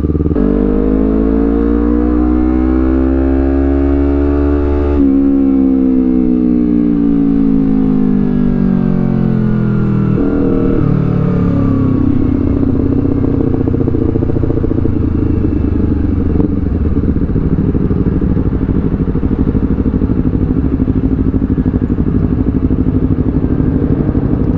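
Honda CBR250RR parallel-twin engine through a Villan Z2 carbon slip-on exhaust, heard from the bike while riding. The engine note climbs over the first five seconds, falls away over the next five as the revs drop, then settles to a steady, lower, pulsing run after a change about ten seconds in.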